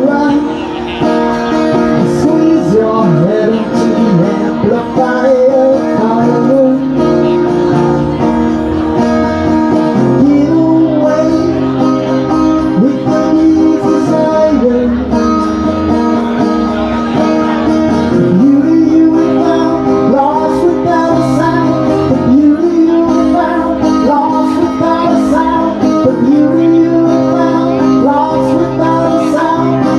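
A man singing live while strumming a twelve-string acoustic guitar, his voice carried through a microphone; the chords change every several seconds.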